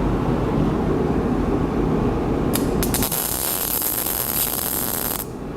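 Steady low rumble of a forge running. A loud, even hiss starts about two and a half seconds in and stops shortly before the end.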